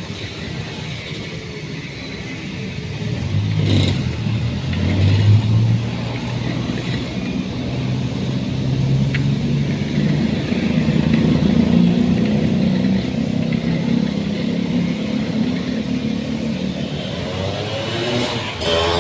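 An engine running steadily, its speed picking up about three seconds in and again about ten seconds in.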